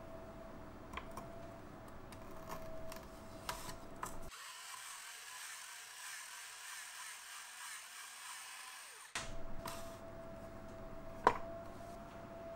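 Electric rotating potato peeler running for about five seconds, its small motor whirring as the blade arm scrapes the skin off a spinning potato. Before it come a few light clicks as the potato is handled onto the spike, and near the end there is one sharp knock.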